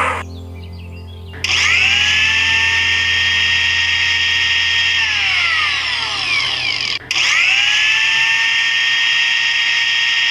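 A small electric motor whining. It starts about a second and a half in with its pitch rising and settling, stops briefly about seven seconds in, then starts again and runs steadily.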